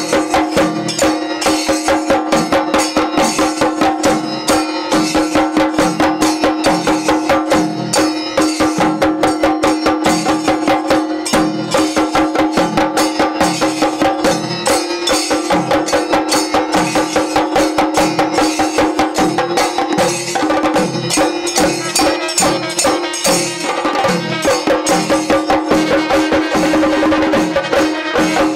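A group of Kerala chenda drums beaten rapidly with sticks in a loud, dense, driving rhythm, over a steady held tone.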